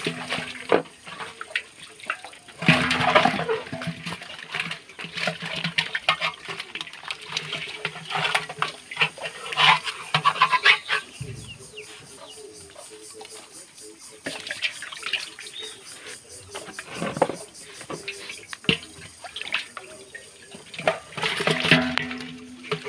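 Water splashing and sloshing as live stinging catfish thrash in aluminium bowls and are handled and tipped into a large aluminium pot. The splashes come in irregular loud clusters, with a few sharp knocks of metal.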